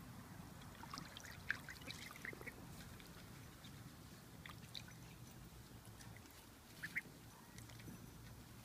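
Young duck giving a few short, soft quacks, clustered about one to two and a half seconds in and again near the end, while it swims in a plastic wading pool.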